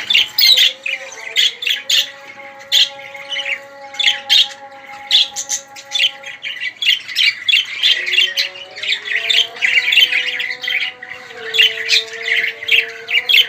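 Budgerigars chattering and squawking continuously, in rapid, sharp, high chirps.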